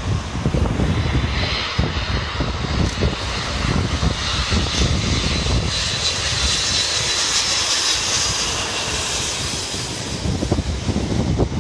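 Jet airliner engines on low final approach: a steady high whine over a deep rumble, strongest in the middle and fading near the end, with wind buffeting the microphone.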